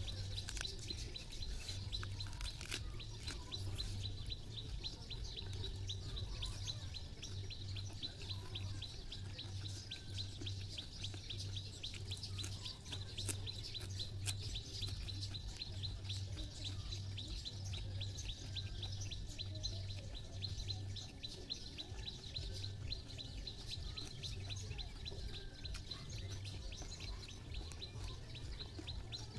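A bird chirping over and over, several short chirps a second at a steady rate, over a faint low hum that pulses on and off.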